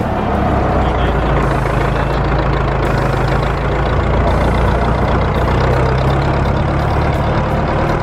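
Farm tractor engine running steadily as it tows a trailer, its note rising slightly about a second and a half in.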